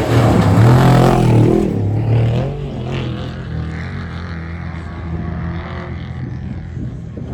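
Off-road race vehicle's engine running hard, loudest in the first second and a half, then settling to a steadier, somewhat quieter drone.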